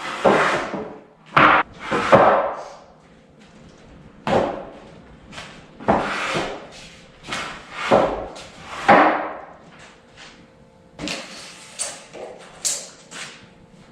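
A run of sharp wooden knocks and thumps, irregularly spaced about a second apart, from lumber being handled and struck while a table is put together.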